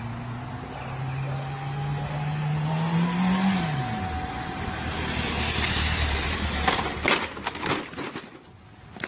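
Sport motorcycle engine rising in pitch as the bike accelerates, dropping sharply about three and a half seconds in, then running steadily at a lower pitch. A quick run of sharp knocks and clatter comes near the end.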